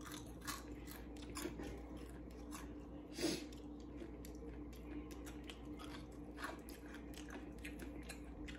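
A person eating, chewing and biting food with soft crunching mouth sounds, and one louder bite a little over three seconds in.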